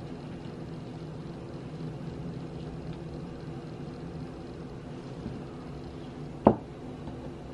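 A small ceramic ramekin set down once with a sharp knock about six and a half seconds in, over a steady low mechanical hum.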